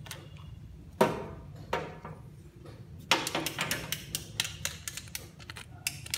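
Pieces of a children's toy tool set being handled: two sharp knocks, then from about three seconds in a quick run of small clicks and ticks.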